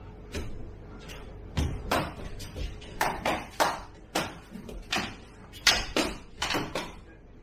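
Sticks clacking against each other and on protective gear during a single-stick sparring exchange: a quick, irregular run of about a dozen sharp knocks, the loudest a little over halfway through.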